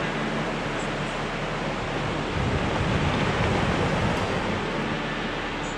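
Small surf breaking and washing up a sandy beach: a steady rushing that swells a little louder about halfway through.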